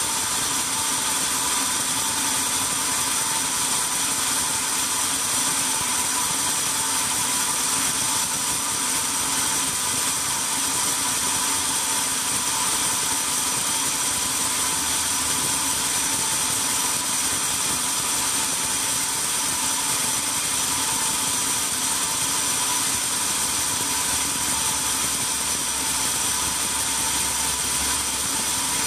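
Belt-driven band sawmill running steadily with its blade not yet in the log: an even mechanical hum with a steady high whine, no cutting sound.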